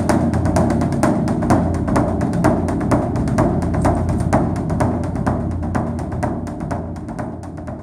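Background music: quick, even percussive strokes over a sustained low tone, fading out near the end.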